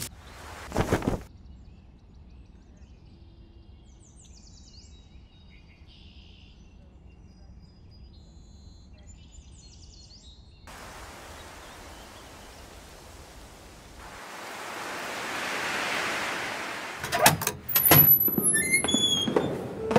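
Faint birds chirping over a low outdoor rumble, with a loud thud about a second in. Then a hiss of noise swells up to a peak about three quarters of the way through, and a run of sharp clicks and knocks with short ringing squeaks follows near the end.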